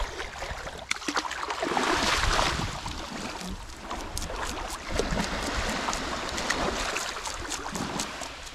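Small waves washing and lapping at the shoreline, swelling about two seconds in, with a run of quick sharp clicks and scrapes from a knife working on a hogfish being cleaned in the shallows.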